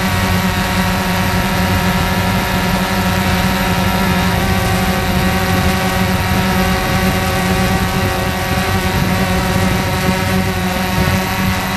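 Quanum Nova quadcopter's electric motors and propellers, heard close up from a camera on the drone itself: a steady buzzing hum of several stacked tones with a hiss of air, holding nearly even as it flies low over the grass.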